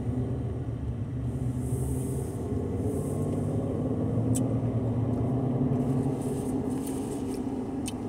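Steady low rumble of a running car, heard from inside the cabin, with two faint clicks about four seconds in and near the end.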